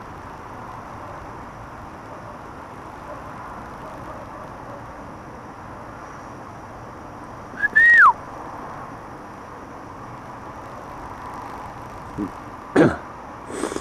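Air rifle shooting during a rat hunt. About eight seconds in there is a sharp crack together with a short whistle that falls in pitch. Near the end come a few quick knocks and cracks, the last two close together.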